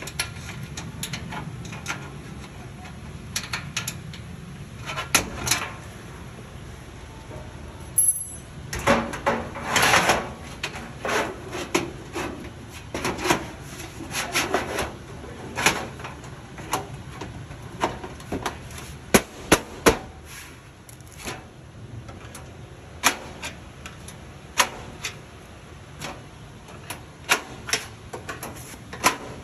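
Irregular clicks, knocks and clatter of a sheet-metal filing cabinet drawer being handled and fitted, with stretches of scraping.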